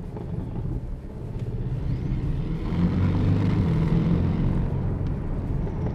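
Porsche 718 Cayman S's 2.5-litre turbocharged flat-four engine running, heard from inside the cabin, its note getting louder from about a second in and staying loud from about three seconds.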